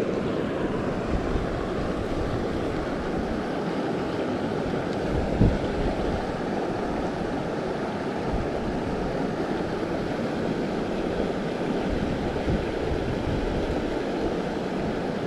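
Creek water running fast over a riffle, a steady rushing, with one brief low thump about five seconds in.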